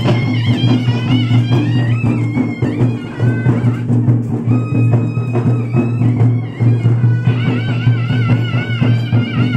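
Loud wedding procession music: drum beats and a wavering high melody over a steady low drone.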